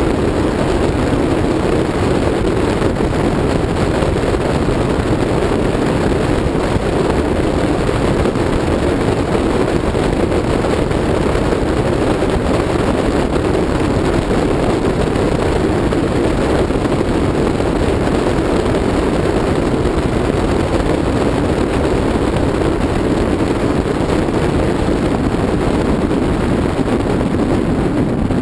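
A car cruising at a steady speed: a constant rush of wind and road noise that does not change.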